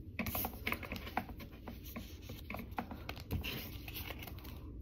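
Paper sticker sheets being handled on a desk: a run of light, irregular rustles, taps and scratches.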